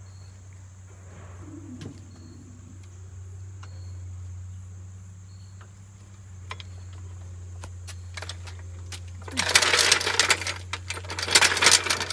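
Steady low hum with a few faint clicks, then loud metallic clattering and rattling in bursts over the last few seconds.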